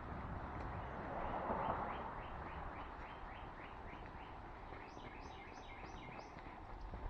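A bird singing a quick run of short down-slurred notes, about four a second, then a higher run of similar notes a little before the end. A brief swell of rushing noise comes about a second and a half in.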